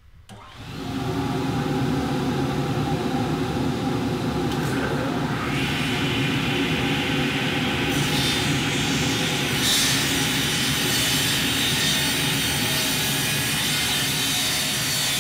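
Two vacuum units of a radial arm saw's dust collection switch on and run with a steady hum. About five seconds in a higher whine joins as the Evanson radial arm saw runs, with brighter noise around eight to ten seconds in as the blade cuts a board.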